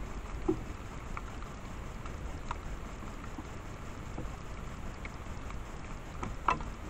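Steady low rumble and hiss of wind on a trail camera's microphone, with a few faint short crackles and one sharper click near the end.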